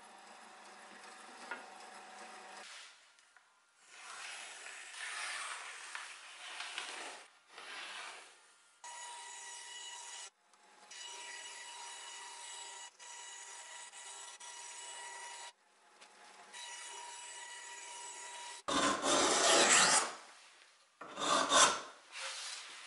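A bandsaw running and cutting wood in short stretches that start and stop abruptly, with a steady motor hum. Near the end come two loud rasping strokes of a hand tool working wood, the loudest sounds here.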